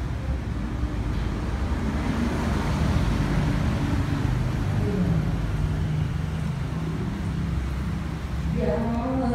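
A steady low rumble with faint low voices under it, then near the end a group of Buddhist monks begins chanting in unison on long held notes.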